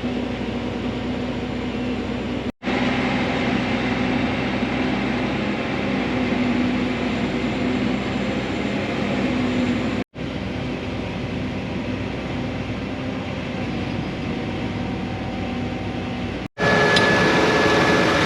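Steady engine and fan drone of harvest machinery running, in clips joined by abrupt cuts. The last few seconds are louder, with a steady high whine.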